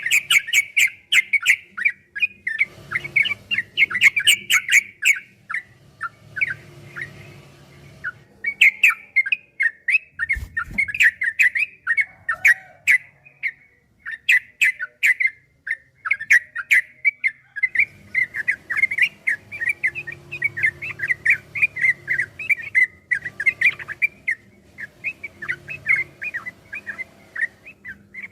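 Yellow-vented bulbul (trucukan) singing a long, fast 'ropel' song: quick runs of sharp chirping notes, several a second, in long phrases broken by short pauses.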